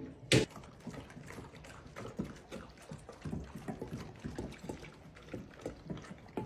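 Dogs eating breakfast from bowls: quick, irregular wet smacking and lapping, with one sharp knock shortly after the start.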